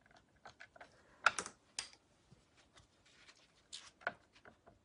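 Faint, irregular light taps and clicks of painting tools against a porcelain plate and the tools being handled, loudest about a second in and again near the end.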